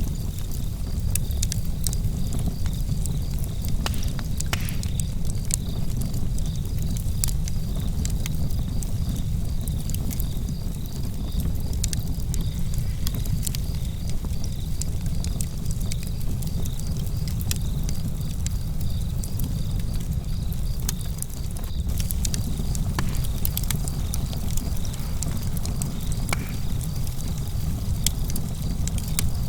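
Wood fire burning in a fireplace: a steady low rumble with frequent sharp crackles and pops scattered throughout.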